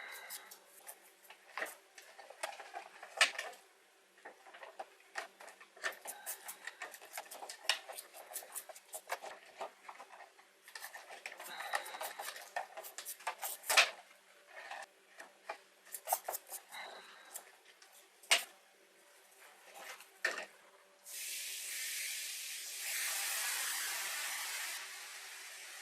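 Bristle brush scrubbing small steel nuts and bolts in a plastic dish of diluted muriatic acid: scratching strokes with the clicks and knocks of the parts against the dish. Near the end a steady hiss sets in for about four seconds.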